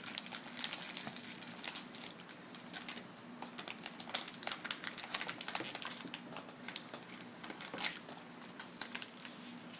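Crinkling and crackling of a plastic blind-bag packet being handled and picked at by a child trying to open it, in many small irregular crackles.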